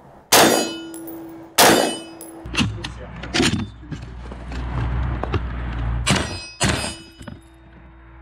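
Four suppressed shots from a Desert Tech MDR-X bullpup rifle in .223 with an LMT suppressor: two about a second apart, then two more about half a second apart near the end. A steady metallic ring follows the first and the last pairs, and a low wind rumble on the microphone runs through the middle.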